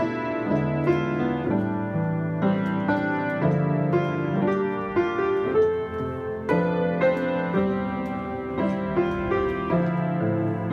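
Piano playing sustained chords, with a new note or chord about every half second.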